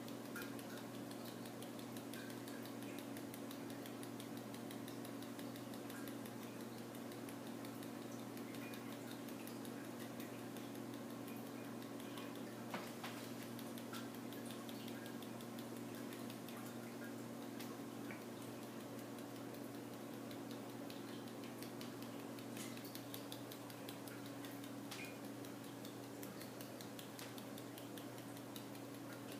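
A steady low hum with faint, scattered ticks and clicks, one sharper click about halfway through: a small plastic glitter bottle being tapped and handled while purple glitter is sprinkled onto soap batter.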